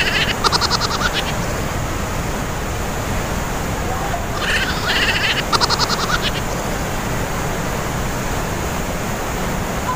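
Glacier-fed waterfall inside the mountain, its water rushing steadily and echoing through the rock gorge. Twice, about five seconds apart, a short rapid trill of clicking pulses cuts through the roar.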